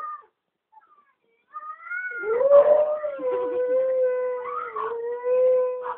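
Pitbull–Dalmatian mix dog crying in a howl. A short rising cry at the start is followed by a moment of quiet. About a second and a half in, one long howl begins, rising and then holding steady, with a brief break near the end.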